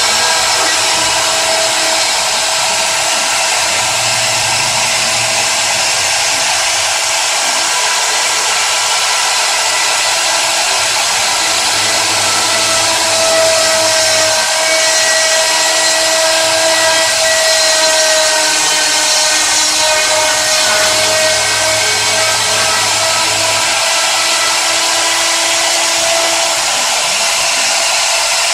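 CNC router spindle running at speed: a loud, steady whine over hiss, its pitch wavering slightly partway through.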